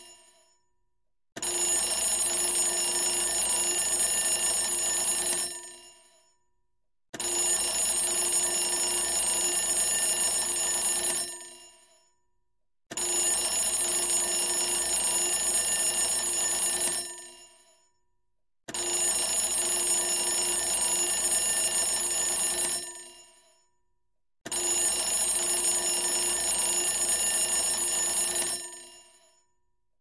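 Twin-bell alarm clock ringing in repeated bursts: five rings of about four seconds each, every six seconds or so, each trailing off into a short silence before the next.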